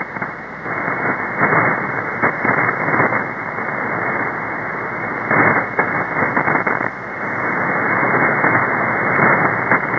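Shortwave receiver audio in upper sideband on 4625 kHz: a steady rushing hiss of static with irregular louder static crashes from nearby thunderstorms. No clear signal stands out of the noise.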